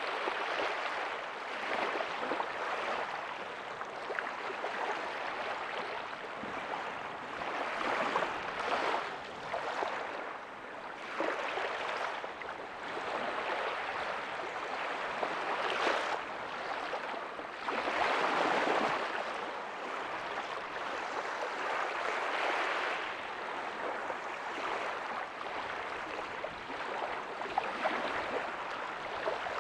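Small ocean waves breaking softly on a beach: a steady wash of surf that swells louder every few seconds as each wave comes in.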